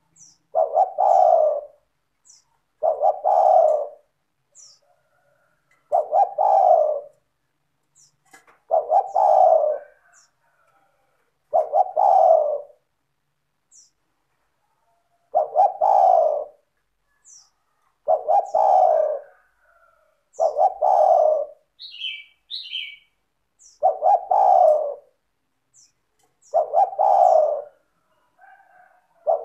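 Spotted dove (tekukur) cooing: a phrase of a little over a second, repeated about ten times at intervals of two to three seconds. It is a steady, clear song of the kind played as a lure to set other spotted doves calling.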